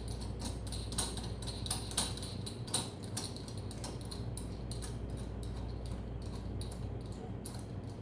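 Light metal clicking, a few clicks a second, that stops near the end: a nut and washers being fitted by hand onto the threaded stud of a Tusk quick-release flag pole mount.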